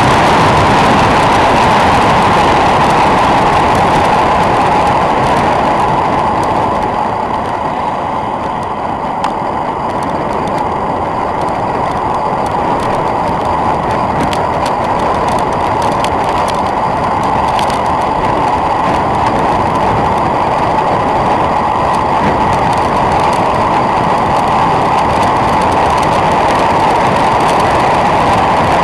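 Wind rushing over an action camera's microphone on a road bike descending at speed, a loud, steady noise. It eases a little about a quarter of the way in and builds again.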